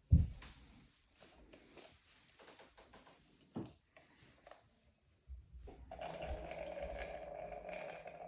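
A loud thump, then light clicks and knocks of plastic being handled, then about three seconds of steady pouring as the X-Shot gel blaster is filled up.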